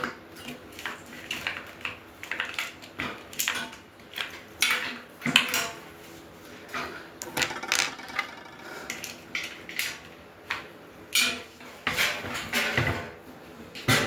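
Loose metal parts of a barbecue grill clinking, clattering and knocking as they are handled and fitted together during assembly, in an irregular run of short metallic knocks.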